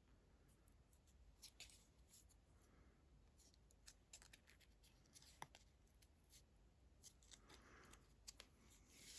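Faint, scattered small clicks and rustles of hands handling paper butterflies and craft materials at a table, with one sharper tick about halfway through.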